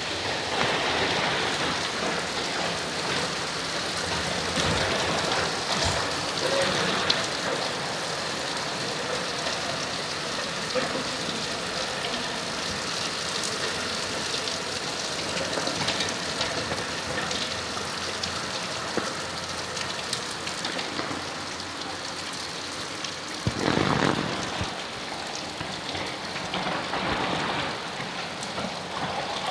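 Heavy rain falling steadily onto a flooded street, hissing on the standing water, with a brief louder surge of rushing water about three-quarters of the way through.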